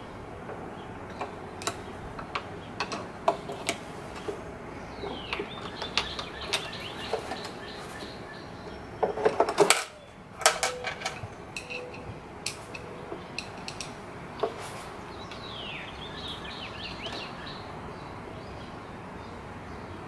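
Small metallic clicks and clinks of a screwdriver and screws as the carburetor's mounting screws on a Lawn-Boy mower are started and driven in, with a dense burst of clicking about halfway through.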